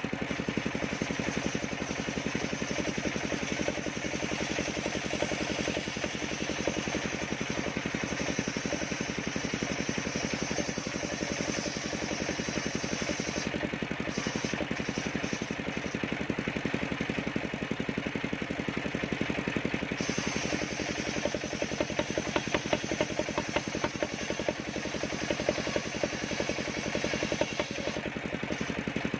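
Engine of a homemade portable circular sawmill running steadily, with a louder, rougher stretch for several seconds in the second half.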